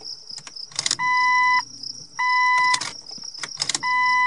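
Jeep Cherokee's dashboard warning chime beeping three times, each beep about half a second long, with sharp clicks as the ignition key is turned on and off. A faint low hum sits underneath: the electric fuel pump priming the fuel rail.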